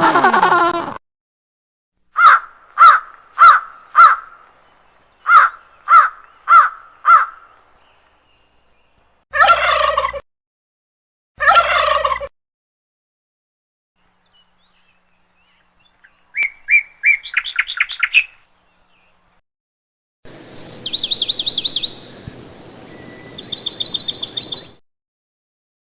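A string of separate animal calls with silent gaps between them, mostly fowl and bird calls: two groups of four short, evenly spaced calls, two longer harsh calls, a fast rattling trill, and high chirping near the end.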